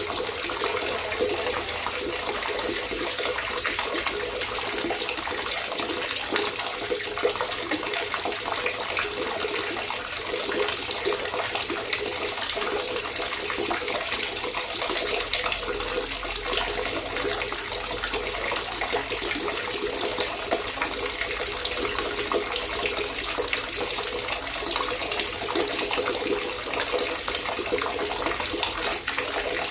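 Water gurgling and trickling steadily, an even, unbroken splashing with no change in level.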